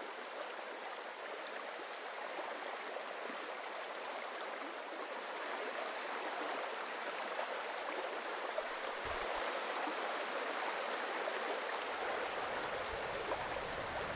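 A shallow rocky river rushing over stones and small cascades: a steady hiss of running water that grows gradually louder, with a deeper rush coming in near the end.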